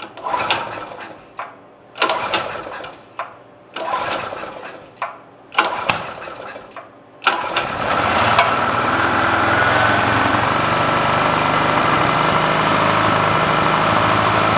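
Generac portable generator's small single-cylinder engine being pull-started on choke after years of storage and a carburetor cleaning. Four pulls that don't keep it running, then it catches on the fifth, a little over seven seconds in, and runs steadily.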